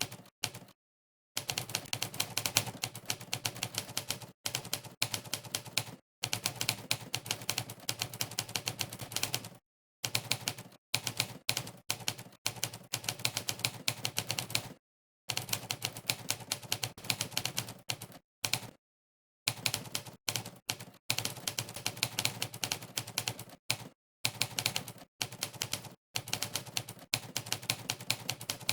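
Monkeytype's typewriter key-sound effect: a fast run of typewriter clacks, one for each key pressed, broken by several short gaps of dead silence between bursts of typing.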